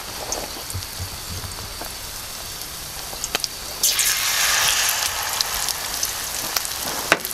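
Battered, stuffed zucchini blossom shallow-frying in hot safflower oil: a steady crackling sizzle with scattered pops. About four seconds in, a second battered blossom goes into the oil and the sizzle turns sharply louder, then eases back a little.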